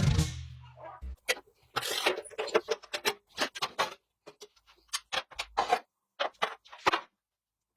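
Irregular series of short, sharp clicks and taps from hands-on workshop work, with gaps between them. Background music fades out at the start.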